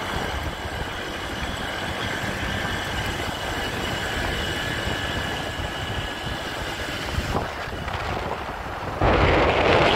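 Motorcycle riding along a road: steady engine and road noise. About nine seconds in, a sudden loud gust of wind buffets the microphone for about a second.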